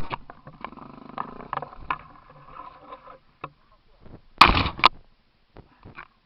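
Off-road vehicle working over a rough dirt trail: the engine runs under a clatter of knocks and rattles, with a loud jolt right at the start and another about four and a half seconds in.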